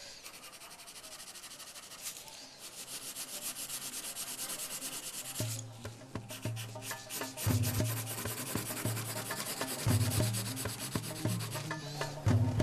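Pencil scratching and rubbing across paper as a cartoon is sketched, in many quick short strokes. From about five seconds in, music with a low pulsing bass comes in underneath.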